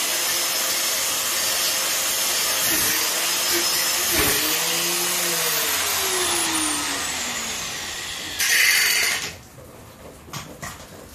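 Angle grinder running and cutting metal, its motor pitch dipping each time the disc bites. A little after five seconds in the pitch falls away as the motor winds down; near the end of its run there is a short, louder burst, then it stops, leaving only a few light knocks.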